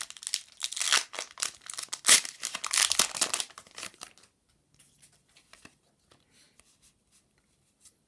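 Pokémon Evolutions booster pack torn open, its foil wrapper crinkling with a sharp snap about two seconds in, for about four seconds. After that come only a few faint light ticks of the cards being handled.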